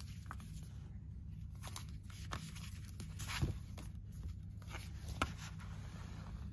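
Paper brochures and booklets being shuffled and slid across a desk: scattered rustles and soft taps, the loudest about three and a half seconds in and a sharp tap just after five seconds, over a steady low hum.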